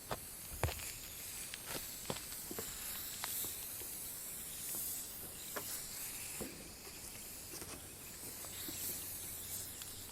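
Outdoor ambience of a steady high insect drone, with scattered light clicks and knocks. The loudest is a low knock a little over half a second in.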